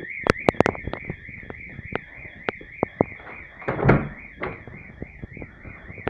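Electronic fire alarm sounder warbling rapidly up and down at a high pitch, about three wobbles a second, heard from another room. Over it come footsteps, clicks and knocks, with a louder thud about four seconds in.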